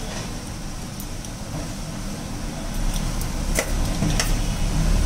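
Steady low rumble of road traffic, swelling near the end, with a couple of light clicks about three and a half and four seconds in.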